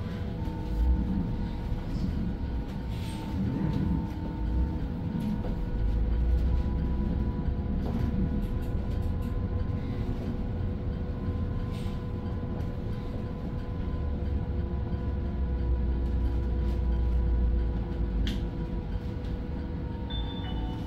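Apollo 1100 autonomous bus heard from inside the cabin while moving: steady road and drivetrain rumble with a constant whine and a few light clicks and rattles. The deep rumble swells louder twice.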